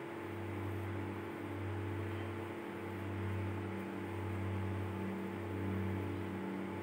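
A steady low electrical hum with faint hiss; its lowest tone dips briefly about every second and a quarter, giving a slow pulsing.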